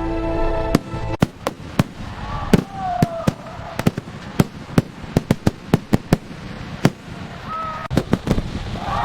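Fireworks bursting in a rapid, irregular string of sharp bangs, with a couple of short whistles among them. Music plays under the first second.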